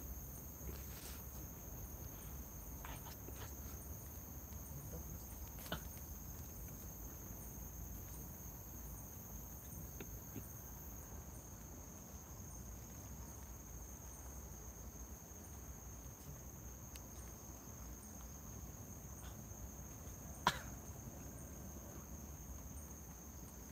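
Crickets chirring steadily in a high, even drone with a faint rapid pulse, over a low background rumble. A few brief faint clicks or rustles, the sharpest about twenty seconds in.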